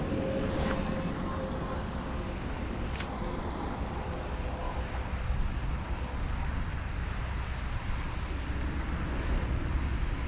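Wind buffeting the microphone as a steady low rush, with a couple of faint clicks.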